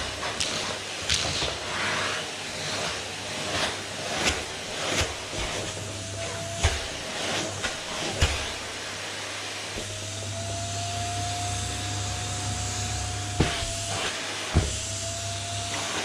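Vacuum cleaner running with its hose nozzle worked over fabric sofa upholstery, a steady rushing hiss with a motor whine that rises and dips in pitch. Scattered sharp knocks and bumps come through along the way.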